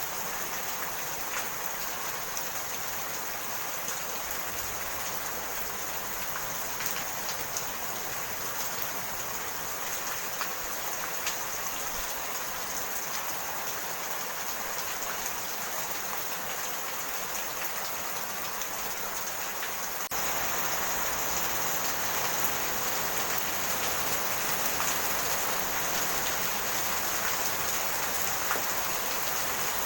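Steady rain falling, an even hiss with scattered drop ticks. It gets abruptly a little louder about two-thirds of the way through.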